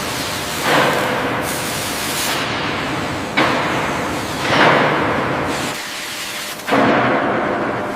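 Factory hiss: a steady noisy background with four louder hissing surges, each starting suddenly and fading over a second or so.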